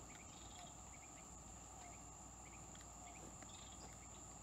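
Faint, steady high-pitched trill of insects such as crickets, with a few faint short chirps scattered over it.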